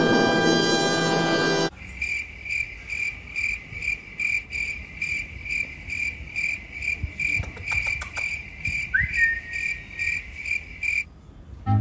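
A dramatic music sting holds a loud chord and cuts off abruptly about one and a half seconds in. It gives way to a cricket-chirping sound effect, a steady chirp pulsing about two to three times a second, with one short rising chirp near the end.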